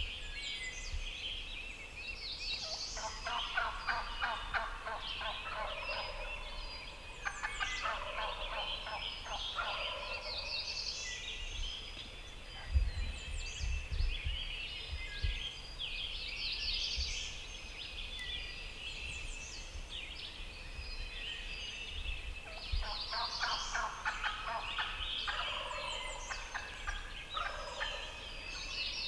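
Wild turkey gobbler gobbling again and again: a few gobbles in the first ten seconds and another run of them near the end, over a dawn chorus of songbirds. A few low thumps about halfway through.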